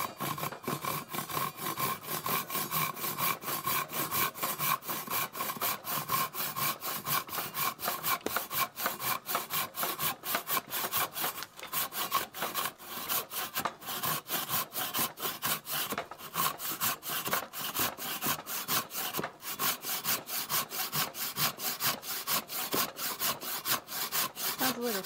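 Japanese ryoba pull saw rip-cutting along the grain of a wooden block with its freshly resharpened rip (tatebiki) teeth. The blade rasps through the wood in quick, even, repeated strokes.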